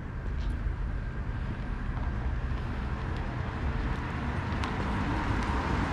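A car driving along the street toward the listener, its engine and tyre noise slowly growing louder, over a low rumble of wind on the microphone.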